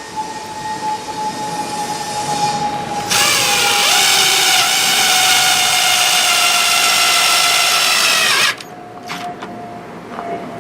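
Power drill driving sheet metal screws into aluminum angle: a steady motor whine for about five seconds, starting about three seconds in and cutting off suddenly, then a couple of light clicks.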